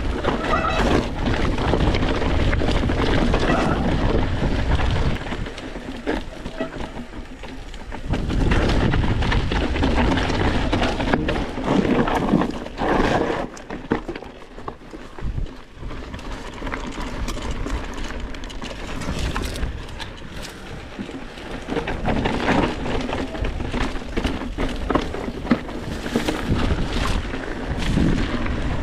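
Mountain bike riding down a rocky, gravelly trail: tyres crunching over loose stones and the bike rattling and knocking over rocks, with a steady low rumble. It is louder early and again around the middle, and eases somewhat in the second half.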